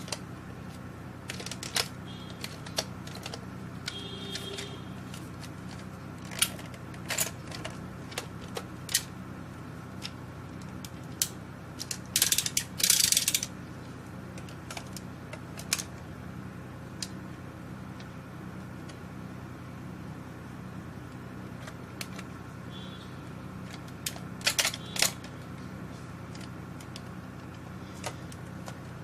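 Scattered plastic clicks and ratcheting of a Nerf N-Strike Elite Strongarm blaster being handled, with a quick run of clicks about twelve seconds in and another near twenty-five seconds, over a steady low hum.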